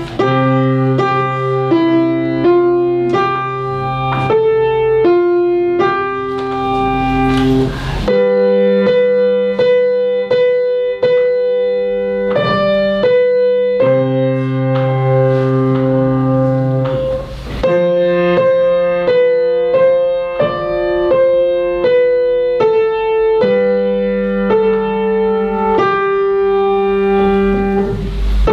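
Grand piano played solo by a young pupil: a melody of single notes, roughly two a second, over held bass notes, with the phrase changing about eight and seventeen seconds in.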